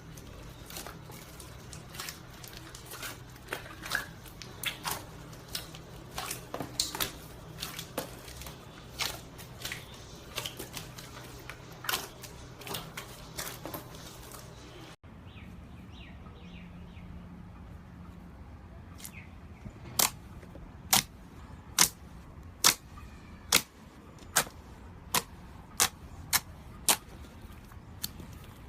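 Slime being squeezed and pressed by hand, giving many small irregular clicks and crackles. After a cut about halfway, loud sharp pops come one after another, about one or two a second, as the slime is pressed.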